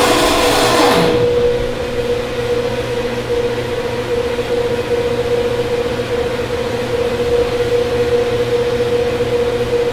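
Hydroelectric turbine-generator running with a steady high hum and its overtones while it is being brought into step with the grid. A brief rushing hiss in the first second.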